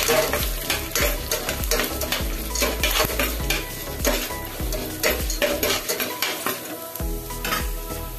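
Spatula stirring and scraping through dal, peanuts and cashews frying in oil in a stainless steel pan, with continuous sizzling and repeated scrapes against the pan.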